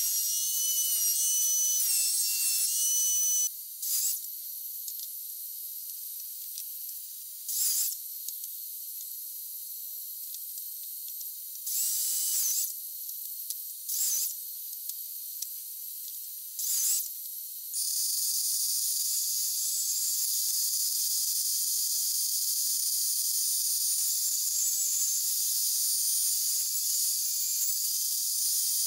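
Woodworking power tools heard as a thin, high hiss with the low end missing. First a router table whines steadily. Then come five short bursts of a sliding mitre saw cutting. From about eighteen seconds a table saw runs steadily.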